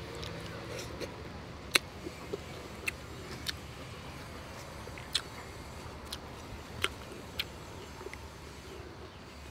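Someone chewing food with wet mouth clicks and lip smacks: about ten sharp clicks at uneven intervals over a faint low background rumble.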